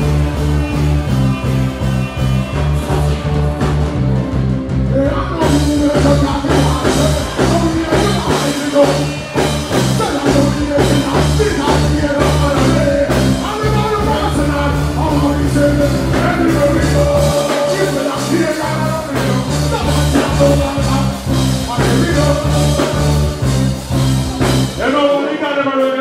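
Live band playing a dancehall rhythm over a steady, repeating bass line, with vocals over it through the PA. The bass drops out briefly near the end.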